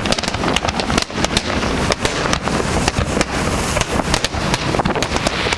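Aerial fireworks going off in a rapid barrage: many sharp bangs a second overlapping into a continuous din.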